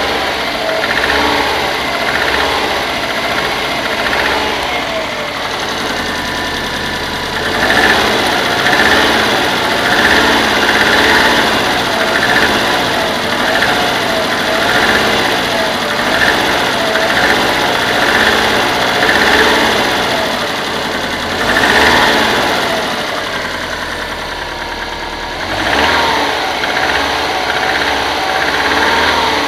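Subaru Forester's EJ205 turbocharged flat-four running with a knocking, rising in loudness a few times as it is revved. The owner cannot tell whether the knock comes from the fourth cylinder or from something else.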